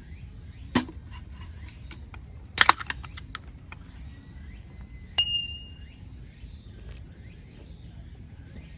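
Clicks and knocks from handling drinks: a sharp click under a second in, a short crackling burst a few seconds in, and a sharp metallic clink with a brief ring about halfway through. Birds chirp faintly in the background.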